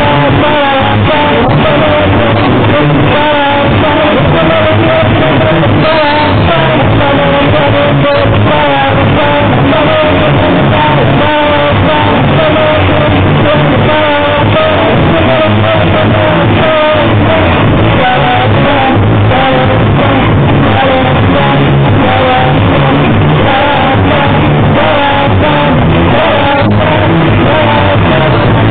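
Rock band playing live: electric guitars and drum kit with singing over them, captured loud and overloaded.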